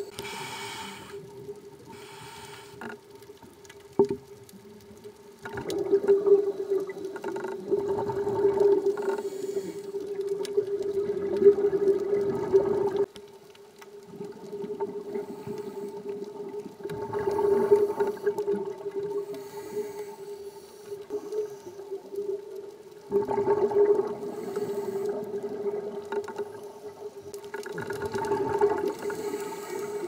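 Scuba divers' regulators heard underwater: bursts of exhaled bubbles every few seconds over a steady hum.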